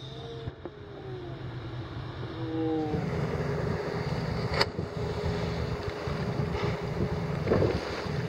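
The boat's two four-stroke outboard motors running steadily, getting louder about three seconds in. Faint drawn-out exclamations come early, and there is a single sharp click past the middle.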